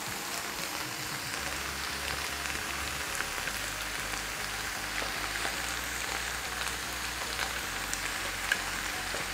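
Minced meat frying in a pan, a steady sizzle with small scattered crackles, as chopped vegetables are tipped in on top of it.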